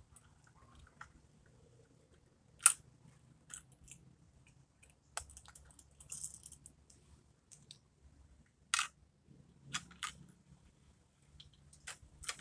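Scattered small clicks and taps from a First Gear rear-loader toy garbage truck and plastic toy trash cans being handled and set down on a concrete path, with a handful of sharper clicks, the loudest about a quarter of the way in.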